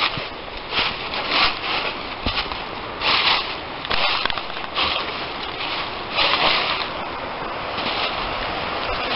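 Footsteps crunching through dry fallen leaves on a woodland path, irregular, about one step a second. A steadier hiss takes over near the end.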